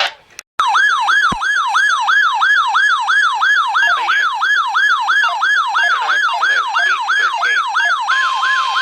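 Electronic siren-style alert tone sweeping rapidly up and down, about three times a second, after a short dropout and click, as a weather radio alarm sounds for a warning. Near the end a steady single tone joins it, in the manner of the NOAA Weather Radio 1050 Hz warning alarm tone.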